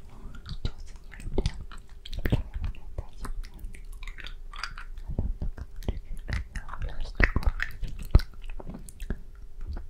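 Close-miked inaudible ASMR whispering: many wet mouth clicks and smacks, mixed with breathy fragments of whisper too soft to make out as words.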